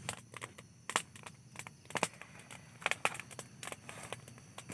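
Open wood fire crackling, with irregular sharp pops about a second apart.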